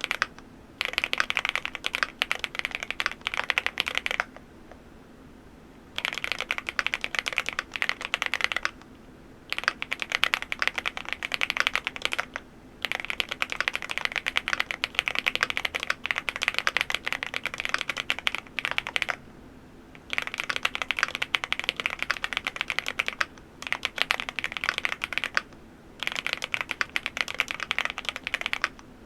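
MCHOSE GX87 full-aluminium tenkeyless mechanical keyboard being typed on fast, in runs of a few seconds broken by short pauses (near the start, about a third of the way in, and several times later).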